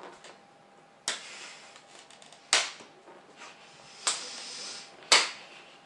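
Open-hand slaps to the face: four sharp smacks, each a second or so after the last.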